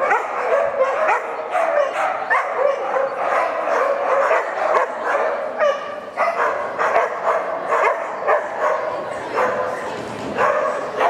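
A dog barking over and over, two or three short barks a second.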